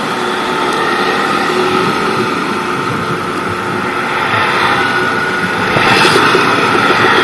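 Kawasaki Ninja RR two-stroke single-cylinder engine running while the motorcycle is ridden, with wind rushing over the microphone; the engine gets louder about six seconds in.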